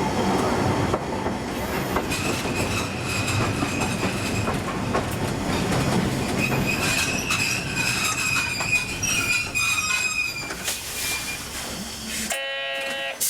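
Okayama Electric Tramway 3000-series tram running, heard from the driver's cab: steady running noise with a few knocks from the wheels over rail joints, and a high steady wheel squeal through most of the middle. Near the end the running noise drops away and a short electronic tone sounds, cut off abruptly.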